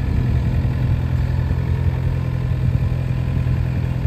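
Diesel engine of a Sunward SWE60E excavator running steadily while its boom is raised.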